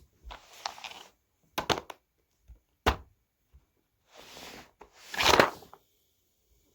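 Handling noises: a few sharp knocks and short rustling, scraping sounds, the loudest a scrape about five seconds in.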